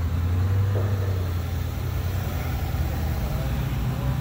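AC Aceca's straight-six engine running with a steady low hum as the car drives past close by.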